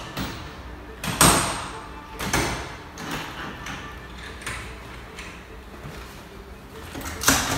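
A few sharp clunks and rattles of hard objects being handled, spaced a second or more apart. The loudest comes a little over a second in, and another strong one comes just before the end.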